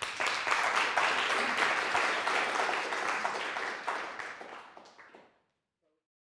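Audience applauding, many hands clapping at once; the applause fades out about five seconds in.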